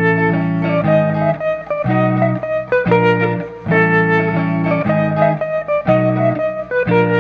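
Instrumental swing music with guitar to the fore, its chords changing on a regular beat.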